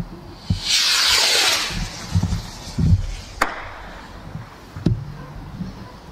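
A firework rocket going up with a rushing hiss that falls away in pitch, then bursting with a sharp bang about three and a half seconds in, followed by a second crack a second and a half later.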